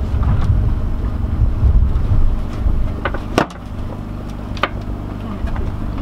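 A sailboat's engine running steadily with a low hum, under a rumble that is heavier for the first couple of seconds. A few sharp clicks from gear on deck, the loudest about three and a half seconds in.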